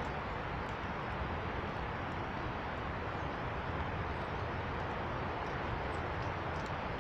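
Steady, even rushing outdoor noise with no change in level, and a few faint, short high chirps over it.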